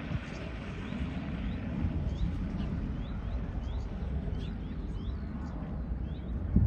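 Steady distant rumble of a departing Boeing 737-800's jet engines as it climbs away after takeoff, with small birds chirping in short, quick repeated calls over it.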